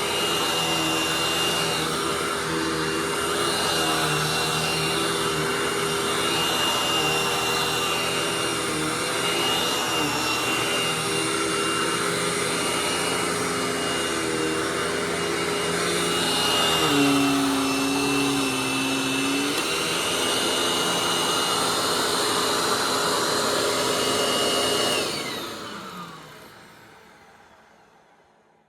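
Hoover Tempo upright vacuum cleaner running steadily with a high whine over its motor hum; about two-thirds of the way through, the hum briefly drops in pitch and gets a little louder. Near the end it is switched off and the motor winds down, the whine falling away to silence.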